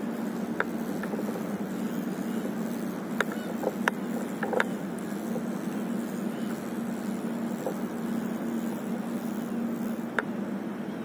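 A steady low hum, with a few short clicks and taps scattered through.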